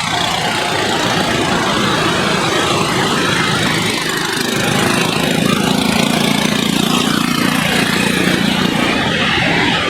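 Steady engine noise, with a low hum that comes up about halfway through and eases off near the end.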